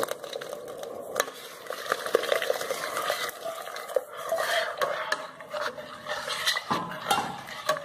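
Refined sugar pouring in a stream into a pot of simmering pitanga juice while a spatula stirs it, with scattered small clicks and scrapes of the utensil against the pot.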